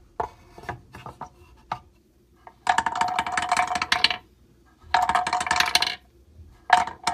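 Half-inch steel balls dropped one after another through a plywood board of quarter-inch wooden dowel pegs, each clattering down in a rapid run of clicks lasting about a second and a half before landing in a slot at the bottom. Three drops, the third starting near the end, after a few light knocks at the start as the board is set on its stand.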